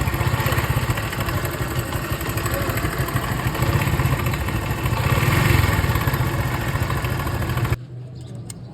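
Honda motorcycle engine running steadily with a rapid pulsing beat, cutting off abruptly a little before the end.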